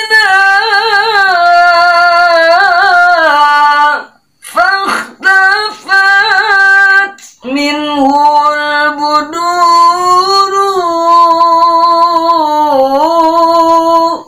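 A single high male voice sings long, held notes of an Arabic devotional song, ornamented with quick melismatic turns, pausing briefly for breath about four seconds and about seven seconds in.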